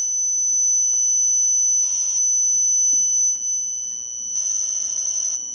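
Steady high-pitched whine from a Lawton pulse circuit driving a step-up transformer and bifilar chokes into a water fuel cell. A harsher buzz breaks in briefly about two seconds in and again for about a second near the end as the gated pulse train comes on. The circuit is being overdriven.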